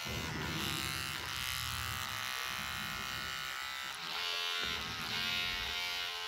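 Electric hair clippers buzzing steadily as they are run over a plush toy dog's fur.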